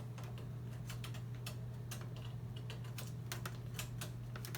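Computer keyboard clicking, with keys pressed and tapped irregularly several times a second, over a steady low hum.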